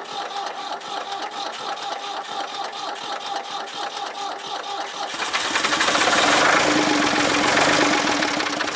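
Ford 4000 tractor's three-cylinder diesel engine running with an even, pulsing beat, still warming up after a cold start in freezing weather. About five seconds in it gets louder and fuller, as if revved.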